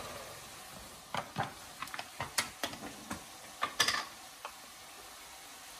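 Light, irregular clicks and taps from a plastic jar of garlic paste being picked up and its lid twisted open, with a quick cluster of clicks a little before four seconds.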